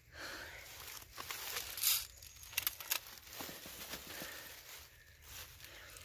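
Dry fallen leaves and twigs rustling and crunching, with a few sharp clicks and cracks; loudest about two seconds in.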